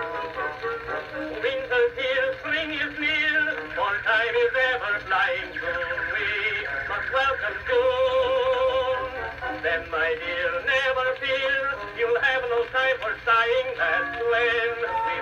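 Edison Amberola 30 cylinder phonograph playing a recorded song through its horn, with the thin, midrange-only sound of an acoustic cylinder recording.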